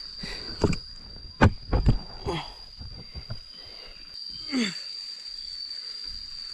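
A steady high-pitched insect trill, typical of crickets, runs under the whole stretch. A few sharp knocks come in the first two seconds, and a short falling sound comes at about four and a half seconds.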